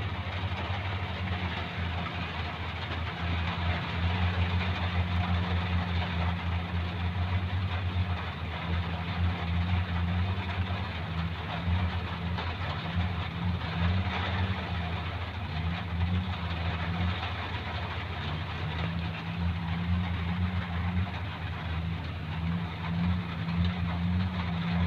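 Steady hiss of falling rain with a strong, low, uneven hum underneath.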